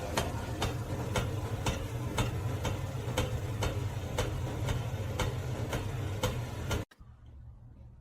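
Steady ticking, about two ticks a second, over a low hum; both stop abruptly about seven seconds in.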